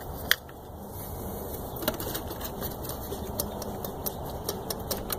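Light, scattered clicks and ticks of engine parts handled by hand, with a sharper click about a third of a second in and another near two seconds.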